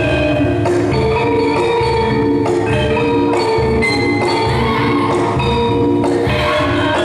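Gamelan-style dance accompaniment: bronze metallophones play ringing pitched notes over a steady low beat.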